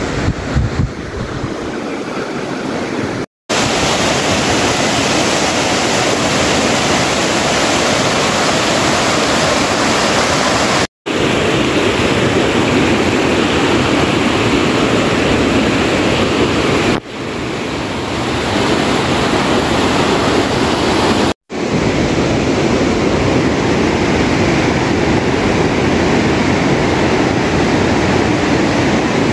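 Loud, steady rush of fast-flowing mountain water, a stream or river in spate, heard in several clips joined by abrupt cuts about three, eleven and twenty-one seconds in.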